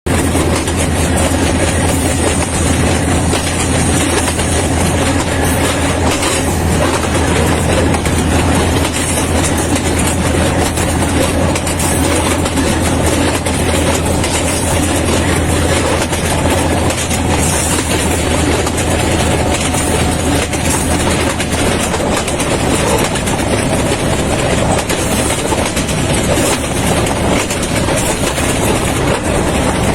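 A train running, heard from inside a carriage: steady wheel-and-rail noise with a low hum underneath. The hum drops away about three quarters of the way through.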